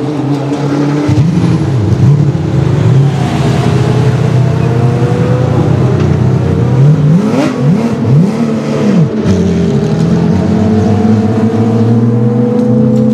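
Porsche 997 GT3 R race car's 4-litre flat-six running at low revs, blipped up and down several times, then pulling away slowly with a steady, gently rising engine note.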